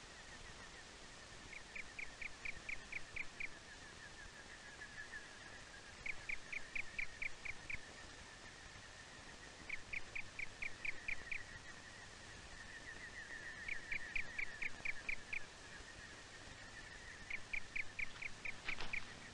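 Faint animal calling: runs of rapid, evenly spaced chirps, about four a second, with a run every four seconds or so over a steady, slightly lower trill. A sharp click comes near the end.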